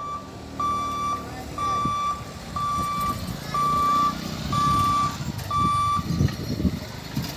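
Electronic warning beeper sounding about once a second, six loud even beeps of one steady high pitch that stop about six seconds in, over the low running of motorbike and rickshaw engines crossing the tracks.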